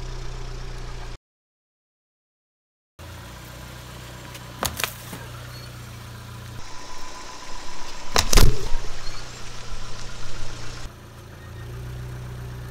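A car engine idling with a steady low hum, cutting out completely for a couple of seconds near the start. About eight seconds in, a car tyre rolls over plastic packets, giving one loud sharp burst.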